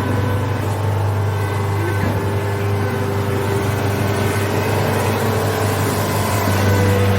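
Rice harvester's engine running steadily, a loud even drone with a deep hum that eases a little midway and comes back stronger near the end.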